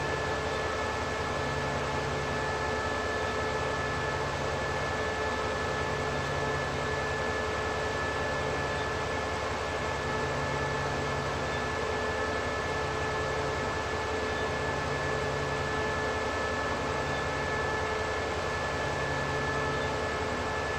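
SRT CDA5B1 diesel-electric locomotive idling while standing: a steady mechanical hum with a constant high whine. A low throb swells and fades about every two seconds.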